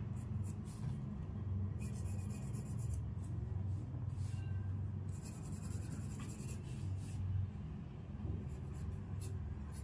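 Graphite pencil scratching on drawing paper in short, repeated shading strokes, over a steady low hum.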